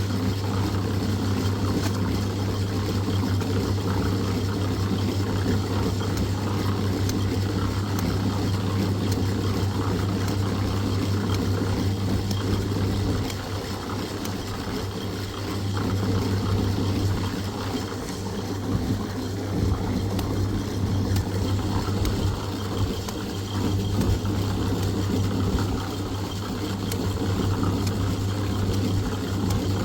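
An engine running steadily with a low, even hum, dipping briefly in level partway through.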